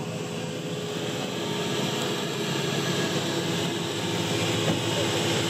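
A motor vehicle engine running at a steady speed, its sound growing gradually louder.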